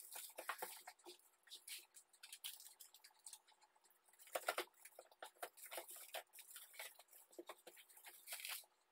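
Aluminium foil crinkling and rustling in faint, irregular crackles as hands press it flat against the inside of a cardboard box.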